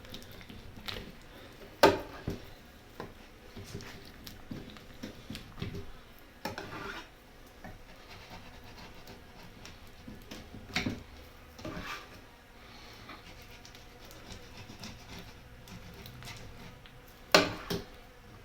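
Honey frames being handled: intermittent rubbing and scraping with scattered knocks, two sharp ones standing out, about two seconds in and near the end.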